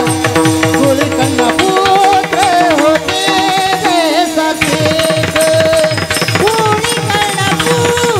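Marathi Warkari devotional singing: male voices singing an ornamented, gliding melody over brass hand cymbals (taal) clashing in a quick steady rhythm and mridang drum strokes, heard through a PA system.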